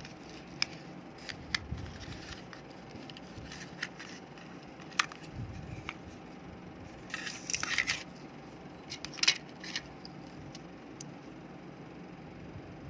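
Small plastic mouse parts and tools being handled on a table: scattered light clicks and taps, a short clatter about seven seconds in, and a sharp click a couple of seconds later, over a low steady hum.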